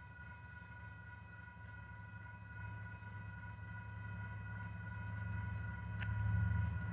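Union Pacific SD59MX diesel locomotives approaching, a low engine rumble that grows steadily louder, over the steady ringing of a grade-crossing warning bell.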